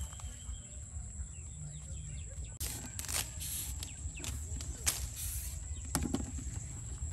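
Leaves and thin branches rustling and brushing in several short bursts, sharpest twice in the second half, over a steady low rumble and a faint steady high whine.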